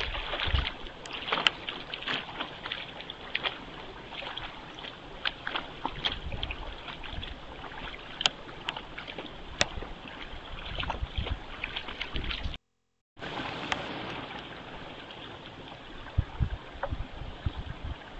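Steady hiss of rain on pond water with sharp drop ticks, and the splashing of white-tailed deer wading through the shallows, with a few low thumps. The sound drops out completely for about half a second two-thirds of the way through.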